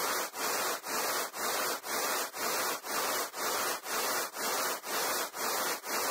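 Synthetic 'space sound' of the kind such videos assign to a planet or moon: a hiss that swells and drops in even pulses, about two a second, like strokes of a saw.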